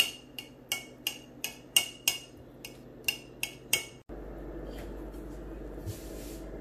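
Table knife chopping hard-boiled eggs on a plate, the blade striking the plate in sharp, ringing clinks about three times a second. The clinking stops about four seconds in.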